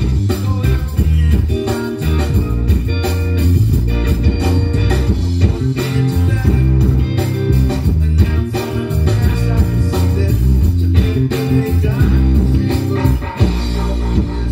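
Live rock band playing, with a prominent electric bass line, electric guitar and drum kit.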